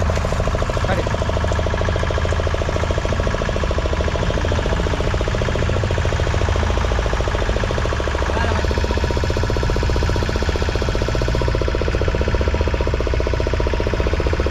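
A fishing boat's engine running steadily, with a deep, even, rapid pulse.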